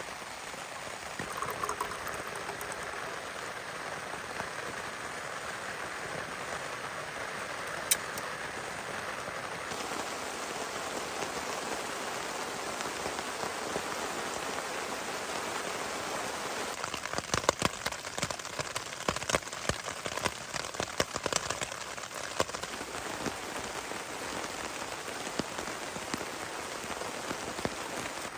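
Heavy rain falling steadily, with one sharp tick about eight seconds in and a run of louder sharp ticks between about seventeen and twenty-two seconds in.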